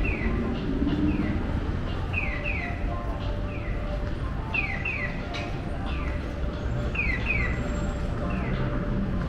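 Japanese pedestrian crossing signal sounding its electronic chick-chirp "piyo" tone: a single falling chirp answered by a double one, alternating about once a second in a strictly even rhythm. The crossing's walk phase is on. A steady low rumble runs underneath.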